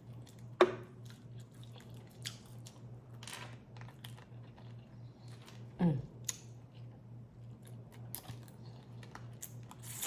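Close-up eating sounds of someone working through a crawfish boil: chewing and crunching with scattered mouth clicks and smacks, two sharper sounds about half a second and six seconds in, over a steady low hum.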